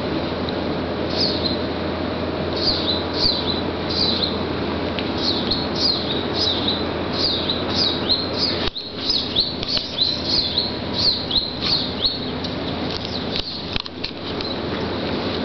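Small birds chirping: a run of short, high, falling chirps, about one or two a second, over a steady background hum.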